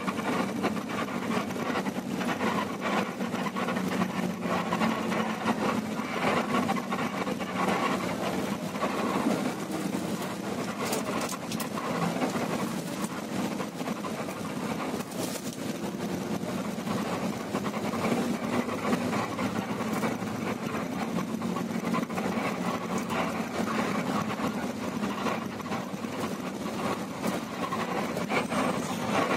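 Steady engine drone and running noise of an intercity coach bus heard from inside its cabin while driving, with light clicks and rattles from the cabin fittings.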